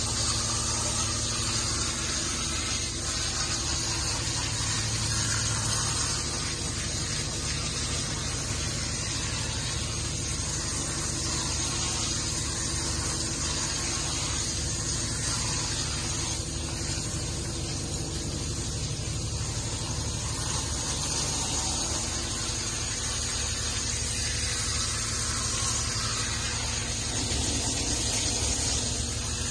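Steady rushing noise with a low hum underneath, even in level throughout.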